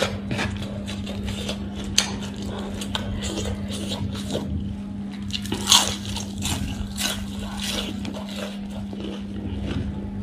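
Eating sounds: crisp crunching bites and chewing of battered, deep-fried leaf fritters (bora), with fingers picking through a shredded vegetable salad. There is a sharp crunch about two seconds in and a louder one a little past halfway, under a steady low hum.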